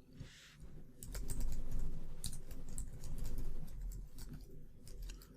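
Typing on a computer keyboard: a quick, irregular run of key clicks, dying away near the end.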